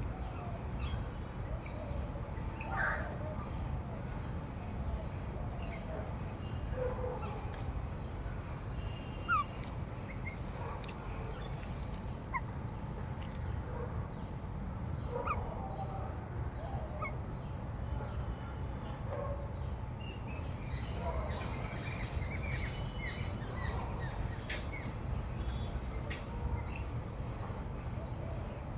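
Outdoor bird chorus: scattered short bird calls and chirps over a steady high-pitched insect drone, with a low background rumble.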